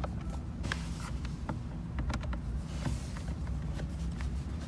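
A few scattered light clicks and taps of small parts and tools being handled, over a steady low background hum.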